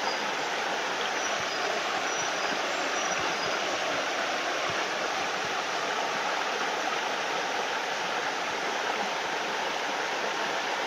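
Shallow stream running over stones in a riffle: a steady, even rush of water.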